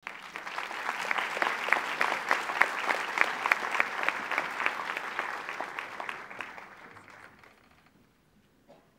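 Large audience applauding, dense clapping that fades away over the last few seconds.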